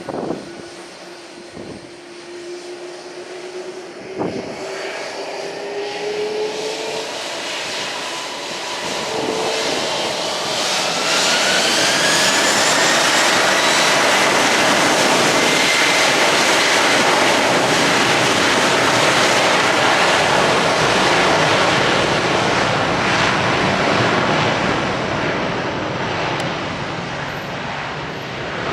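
Twin-engine widebody jet airliner spooling up for takeoff: rising whines climb over several seconds, then a loud, steady jet roar that holds for about a dozen seconds and slowly fades near the end.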